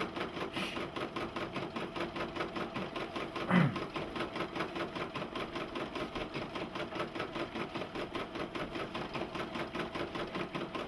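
Computerized embroidery machine stitching a design, a fast, even rhythmic clatter over a steady motor hum. A brief louder low sound breaks in about three and a half seconds in.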